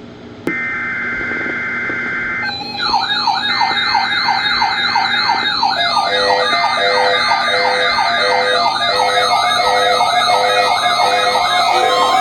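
NOAA Weather Radio weekly alarm test setting off weather alert receivers. About half a second in there is a click and a short stretch of steady data tones. From about three seconds, several warbling siren alarms overlap, with a steady beeping joining them a few seconds later.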